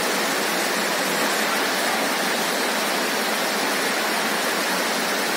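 Heavy rain falling steadily, a dense even hiss of water.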